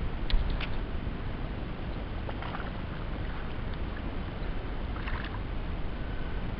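Steady wind rumble on the microphone with small waves lapping around a pontoon boat, broken by two sharp clicks in the first second and two brief splashy hisses about two and a half and five seconds in.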